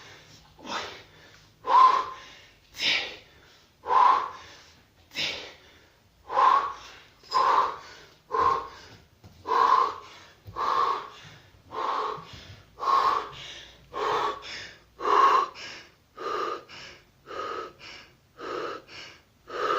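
Heavy, rhythmic breathing from the exertion of squatting with a 34 kg kettlebell: loud breaths about one a second, coming faster from about six seconds in.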